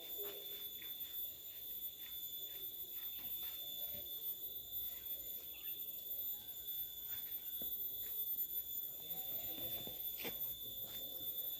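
A steady high-pitched tone held without a break, with faint irregular clicks and steps beneath it.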